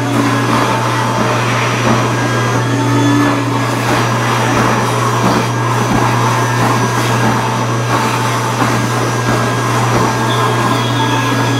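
An electric blower motor running steadily, a continuous rushing air noise over a low hum.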